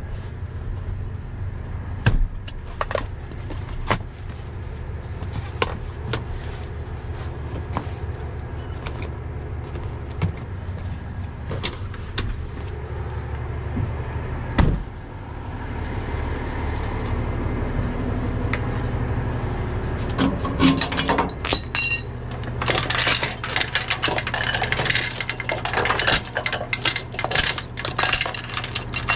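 A truck engine idling steadily under scattered metallic clicks, clinks and knocks. From about twenty seconds in a louder rattling, hissing noise comes in.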